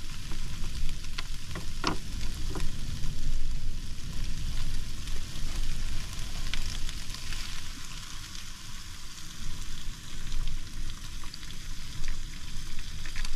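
Prawns and curry paste sizzling in a frying pan while being stirred, with a few sharp utensil clicks against the pan in the first few seconds. A steady low rumble runs underneath.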